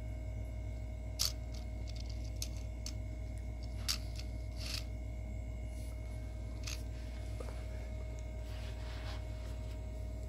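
Handling noise from a plastic Lego Technic airplane model: a few scattered light clicks and scrapes as the pieces are moved about, the sharpest about a second in and about four seconds in, over a steady low hum.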